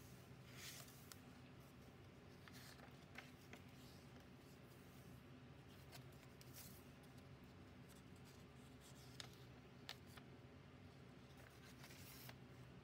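Faint rustling of the thick paper pages of a handmade junk journal being turned by hand, with a few soft ticks, over a low steady room hum.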